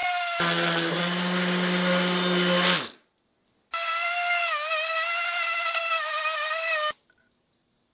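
Brushless random orbital sander running on a purpleheart board: a steady high whine that wavers and dips slightly in pitch as it is pressed into the wood. Shortly after it starts, a lower-pitched stretch winds down and stops; after a brief gap the high whine returns for about three seconds and then cuts off.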